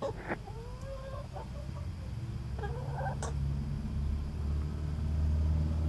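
Domestic hens clucking, with a few short calls. From about two seconds in, a low engine hum rises steadily beneath them and becomes the loudest sound.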